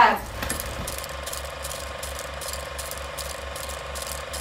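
Old film projector clatter, as used for a vintage "The End" title card: a steady, fast, even mechanical rattle of regular clicks.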